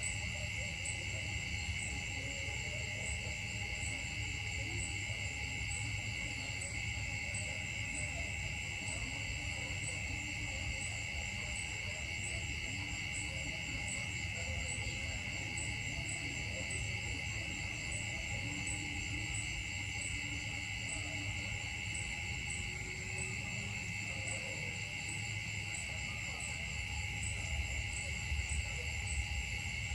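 Steady insect chorus: several high-pitched drones layered together, the highest pulsing about one and a half times a second, over a low rumble.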